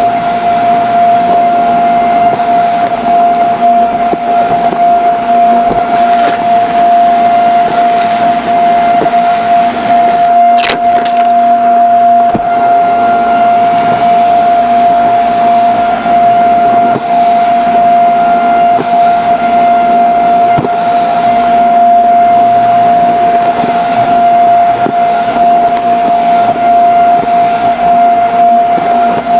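Vacuum cleaner running continuously with a steady, unchanging motor whine, with a single sharp click about ten seconds in.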